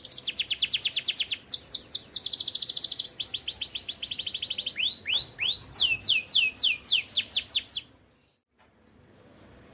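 Domestic canary singing a rolling song: fast trills of rapidly repeated high notes, then a run of loud downward-sliding notes, stopping abruptly about eight seconds in.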